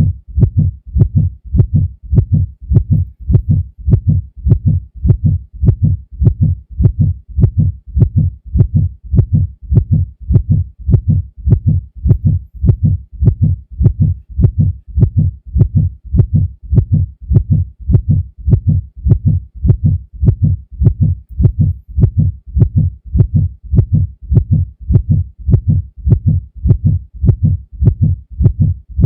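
Heartbeat sound effect: a steady, even rhythm of low lub-dub thumps that repeats without change.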